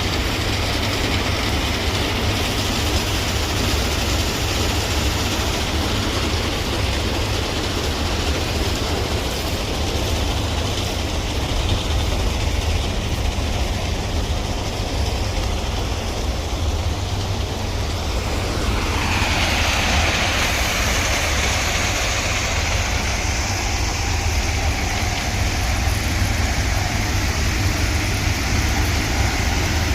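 Heavy railway track machinery running: a steady low engine rumble mixed with mechanical noise. About two-thirds of the way through, a brighter hissing layer comes in on top.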